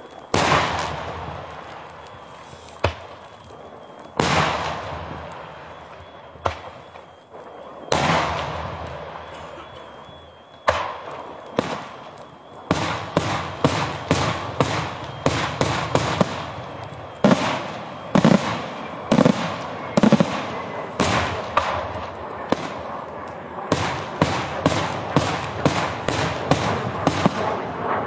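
Daytime aerial fireworks going off: single sharp bangs a few seconds apart, then from about halfway a rapid run of bangs, several a second.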